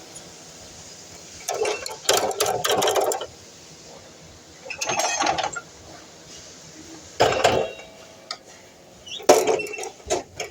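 Four short spells of clattering and knocking, like tools or workpieces being handled, with no saw motor running between them.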